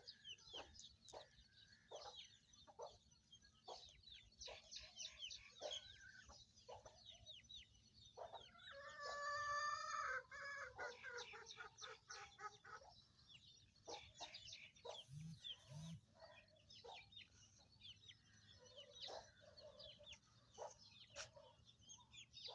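Farmyard chickens clucking, with many short, high calls throughout. One louder, drawn-out call comes about nine seconds in.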